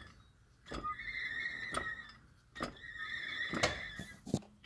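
Squeal from between the 4L60E transmission and the transfer case of an LS-swapped Jeep as the drive shaft is turned forward by hand. It comes three times, each lasting about a second, with a few sharp knocks among them. The owner suspects the transmission; the squeal appears only when the shaft turns forward.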